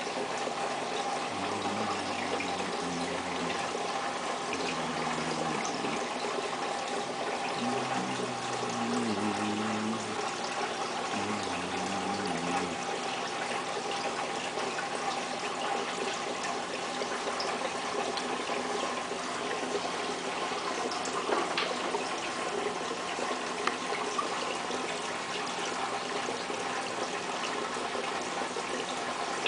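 Steady running and splashing of water in a fish tank, with a faint steady tone under it. For the first dozen seconds a person hums a wandering tune over it.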